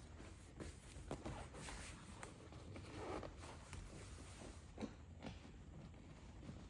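Faint, irregular rustling and scraping of a fabric seat cover being forced down between a car seat and the center console by hand, with a few light knocks.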